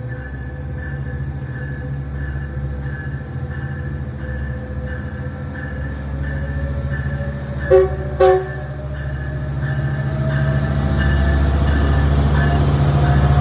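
Metrolink diesel locomotive approaching and coming past with its engine running, a bell dinging about twice a second throughout. It sounds its horn in two short blasts about eight seconds in, and the engine and rolling train grow louder as the coaches pass.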